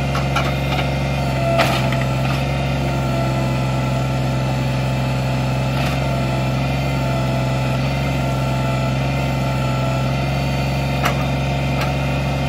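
Kubota BX25D compact tractor's three-cylinder diesel engine running steadily, with a few sharp knocks.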